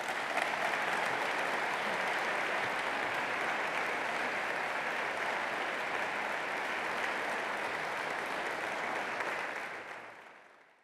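Audience applauding steadily after a speech, fading out near the end.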